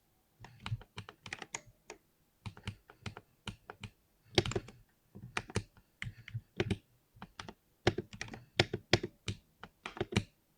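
Heavily lubed 60% mechanical keyboard being typed on in quick, irregular bursts of keystrokes, with short pauses between bursts.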